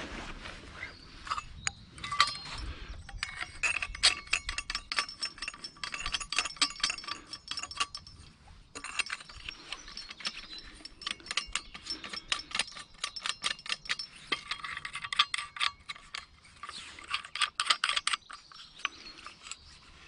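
Handheld metal-detecting pinpointer sounding in stretches of rapid pulsed beeps, breaking off briefly a few times.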